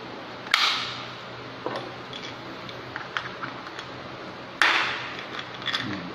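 Hard plastic parts of a phone holder clicking and clacking as it is handled and assembled: two sharp louder snaps, one just after the start and one about four and a half seconds in, with a few light ticks between.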